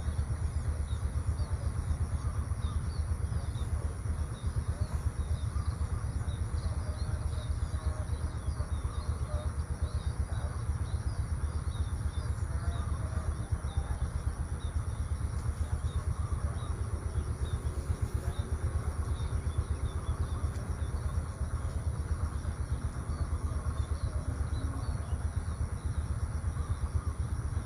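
Outdoor ambience dominated by a steady low rumble, with faint, scattered bird chirps above it.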